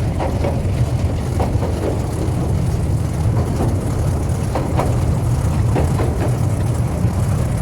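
Open-air tourist train running along the line: a steady low rumble of the engine and wheels, heard from the open carriage.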